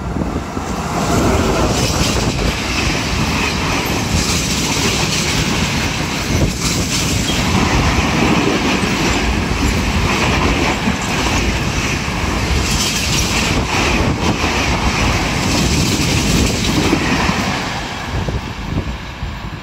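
Freight train hauled by an E652 electric locomotive passing close by on the platform track. A long rake of high-sided wagons makes a loud, steady noise of wheels on rails, setting in about a second in and dying away near the end as the last wagon goes by.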